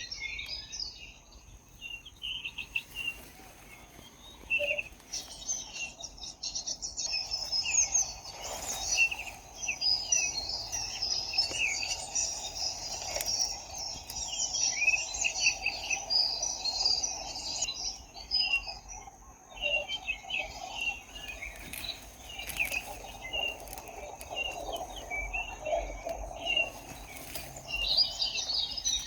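Small birds chirping and singing in many quick overlapping calls, in dense flurries through the middle stretch, with a thin steady high tone like an insect underneath.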